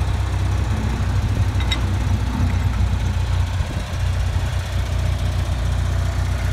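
An engine idling steadily with an even low hum, with one light click about two seconds in.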